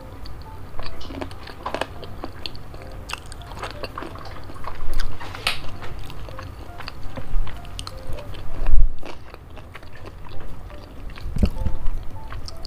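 Close-miked chewing of spicy boneless chicken feet: irregular wet mouth clicks and smacks, with a few louder bites.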